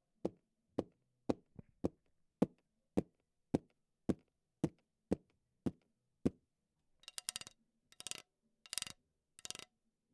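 A dozen sharp taps at an even pace of about two a second, then, after a short gap, four quick rattling, jingling bursts near the end.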